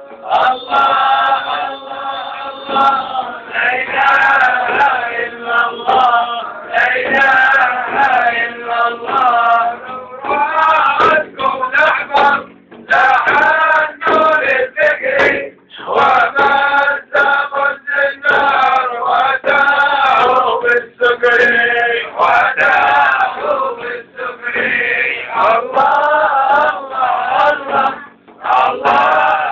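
Men singing a Sufi devotional chant together, with a large frame drum struck in rhythm under the voices.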